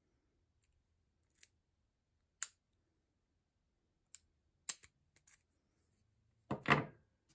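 Brass Yale padlock and its key being handled: a few scattered light clicks of metal on metal, then a louder, longer handling noise near the end.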